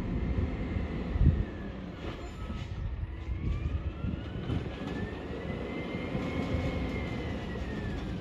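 Garbage truck's diesel engine running with a low rumble, one loud thump about a second in, then a whine that slowly rises and falls in pitch as it lifts a recycling cart over the cab.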